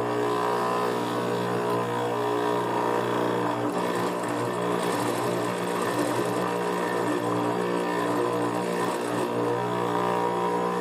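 Juki industrial sewing machine's motor running with a steady hum, with a rougher stretch of the machine stitching through the suede in the middle.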